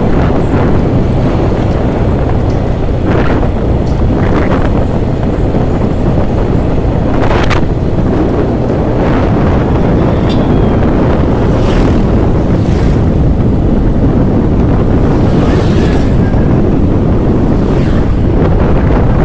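Heavy wind noise buffeting the microphone of a moving vehicle, a loud steady rush with several brief gusts, the vehicle's running mixed in underneath.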